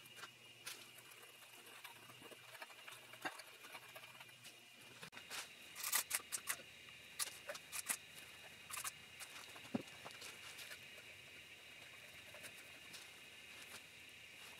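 Irregular light clicks and taps of small hand work, bunched about six to nine seconds in, over a faint steady high-pitched whine.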